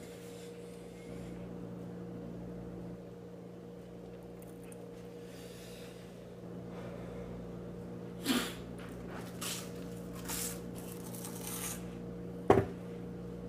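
A person eating toast: a few short chewing noises over a steady low hum, then one sharp knock near the end.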